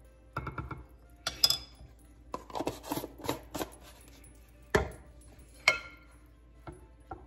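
Kitchen handling sounds: a metal measuring spoon clinking against a plastic jar of powdered soup base and a glass measuring cup, then the jar's plastic lid screwed on with a run of scraping clicks. The jar is set down on the stone counter with a thump near five seconds in, followed by one more clink.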